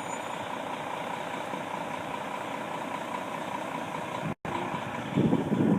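Truck engine idling steadily. The sound cuts out for a moment about four seconds in and comes back louder and rougher near the end.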